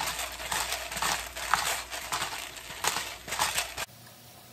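Black pepper being ground from a pepper mill in a run of short, rhythmic grinding strokes, about two or three a second. The sound cuts off abruptly near the end, leaving only a faint low hum.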